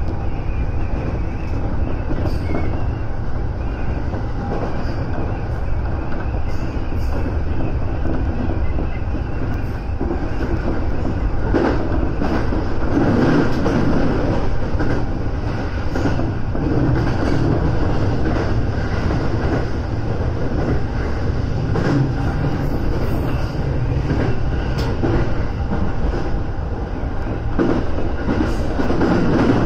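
Electric commuter train running along the tracks, heard from inside the front car: a steady low rumble with scattered clicks of the wheels over rail joints, growing louder about twelve seconds in.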